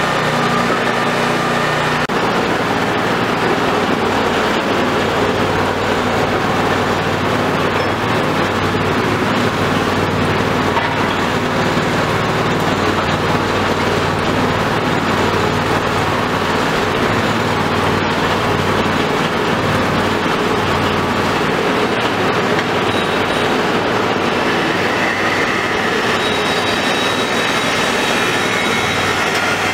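Small trailer-mounted hydraulic drilling rig running steadily under test, its engine and hydraulic drive making a continuous mechanical noise while the mast and rotator controls are worked. A faint higher whine joins near the end.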